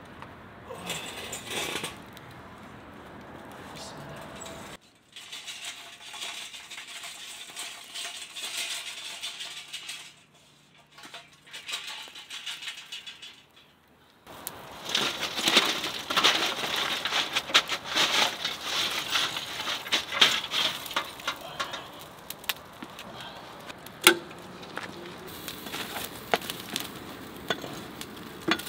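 Burning lump charcoal tipped out of a metal chimney starter onto concrete, clattering and crackling as the hot pieces land. A dense run of clicks and crackles starts about halfway through.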